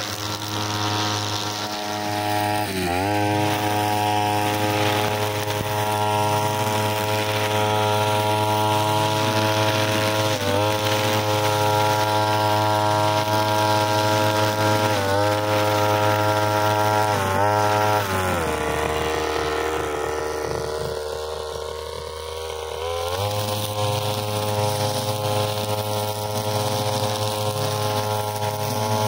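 Brushcutter's small engine running at high revs while cutting grass, dipping briefly in pitch a few times, then dropping to idle for about five seconds about two-thirds of the way in before revving back up.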